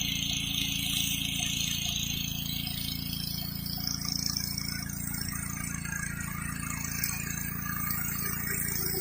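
Gas-engine pressure washer running steadily under high-pressure water spray hissing on concrete. About three seconds in, the spray's hiss shifts higher.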